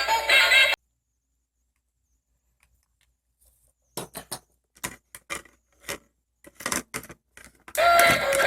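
Background music cuts off under a second in; after a few seconds of near silence comes a run of short, light clicks and taps, like small plastic toy pieces being handled, and the music starts again near the end.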